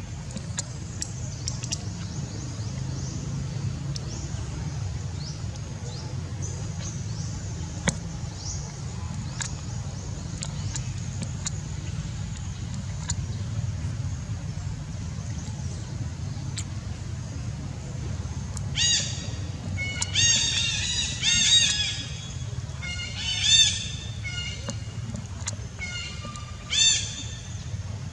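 Steady low outdoor background noise with faint short chirps, then from about two-thirds of the way in a run of loud, high-pitched animal calls, several short rising-and-falling cries in quick clusters that stop shortly before the end.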